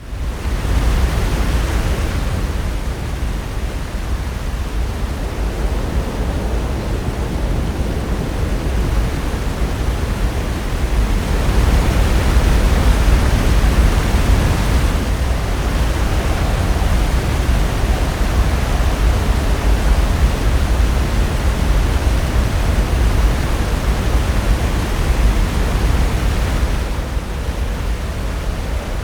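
Pacific Ocean surf breaking on the shore: a continuous rushing wash that fades in at the start and swells and eases as successive waves come in.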